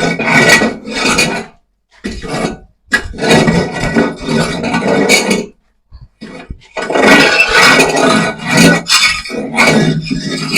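Sawdust and charcoal being mixed together for poultry litter: scraping and rubbing in irregular strokes, broken by short pauses.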